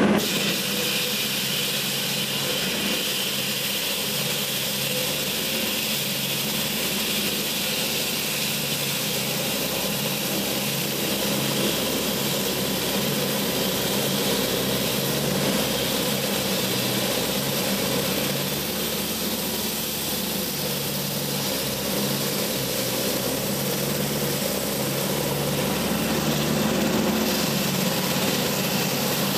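Street traffic at a city intersection: a steady engine hum with vehicles passing, growing slightly louder near the end.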